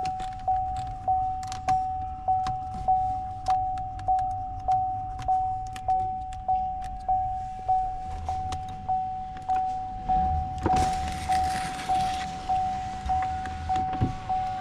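Vehicle dashboard warning chime, a single-pitched ding repeating steadily not quite twice a second. About ten seconds in, a couple of seconds of rushing noise joins it, and there is a thump near the end.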